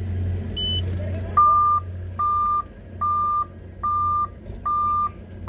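Excavator cab warning buzzer beeping steadily, an even on-off beep at one pitch repeating about once a second, starting about a second and a half in and preceded by one short higher beep. A low steady diesel engine hum runs underneath.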